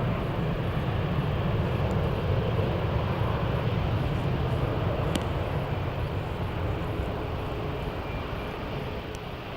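Boeing 757 jet engines running, a steady low rumble and rush that slowly fades.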